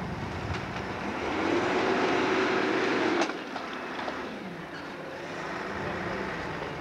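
Diesel engine of an articulated wheel loader revving up under load for about two seconds as it pushes against the elevator wall, then dropping back with a single sharp knock about three seconds in; the engine runs on at lower revs.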